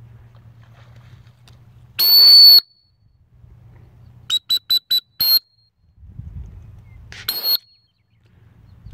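Dog-training whistle blown by a handler to a working retriever: one long blast about two seconds in, a quick run of about five short toots a couple of seconds later, then another short blast near the end. In retriever handling a single blast is the usual sit-and-look-back signal and a run of short toots is the come-in signal.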